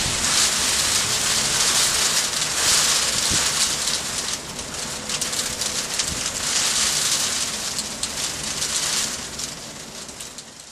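Hail falling in a dense patter of many small stones striking hard surfaces, fading away near the end.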